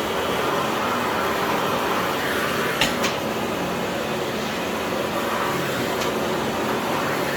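Philips PowerPro FC9331/09 900 W bagless cyclonic vacuum cleaner running with a steady whoosh of suction, with two brief knocks about three seconds in.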